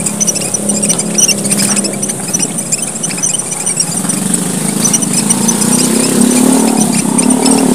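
A group of small Papuan red finches (emprit merah papua) chirping, with many rapid, short, high-pitched chirps. Under them a motor engine hums, rising in pitch through the second half.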